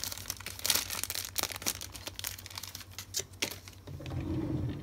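Thin clear plastic bag crinkling and crackling as a clear plastic sprue of model kit parts is worked out of it. Near the end the crackling gives way to a short low droning sound.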